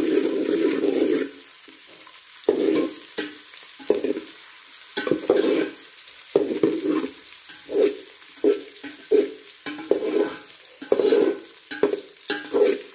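Chopped onions sizzling in melting ghee in a steel pot, stirred with a slotted steel spatula that scrapes the pot bottom in repeated short strokes.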